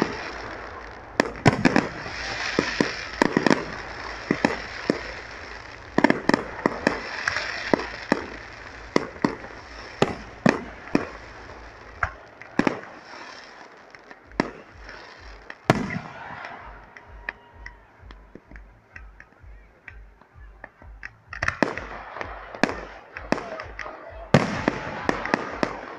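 Fireworks display: aerial shells bursting one after another with sharp bangs and crackling. It eases to scattered bangs for several seconds past the middle, then a dense volley starts again near the end.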